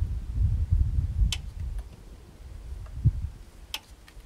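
Hand tools working on a brake caliper's fittings: two sharp clicks about two and a half seconds apart and a dull knock, over a low, uneven rumble that fades about halfway through.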